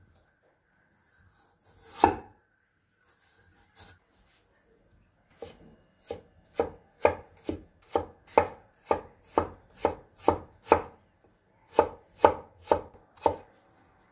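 Chinese cleaver chopping a peeled potato on a wooden cutting board, cutting slices into thin shreds. One knock about two seconds in, then a steady run of blade strikes, about two a second, from about six seconds on, with a brief pause near the end.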